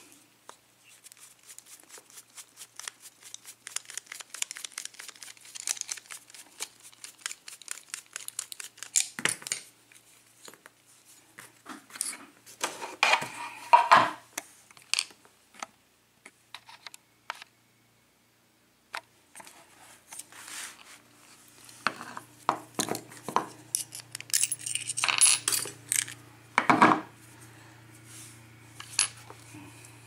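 Small metallic clicks and clinks from a picked-open Luke Locks Grip padlock being handled: a run of fine rapid clicks, then louder clinks and knocks. A low steady hum comes in about two-thirds of the way through.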